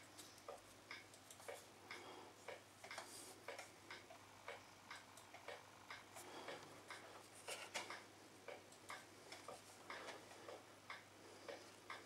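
Small tit pecking at a seed ball in a mesh net: quick, irregular beak taps and clicks, roughly two or three a second, faint.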